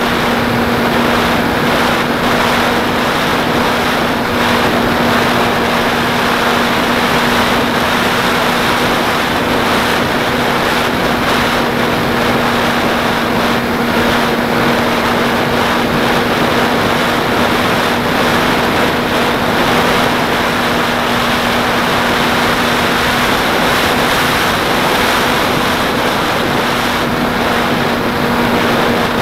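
The propeller and motor of a Beta 1400 RC plane running steadily in flight, heard from its onboard camera as a constant drone over loud wind rush.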